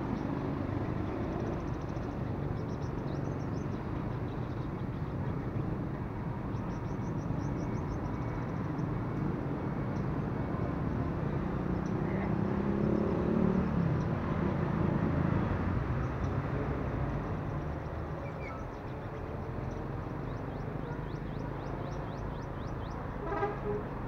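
Steady road-traffic noise with a vehicle passing about halfway through. Sunbirds give short, high, rapid trills several times over it. A vehicle horn toots just before the end.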